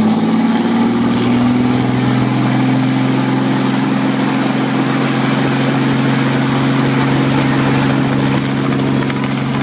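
Light helicopter running on the ground with its rotor turning, a steady engine and rotor drone that rises slightly in pitch over the first couple of seconds as it winds up before lift-off.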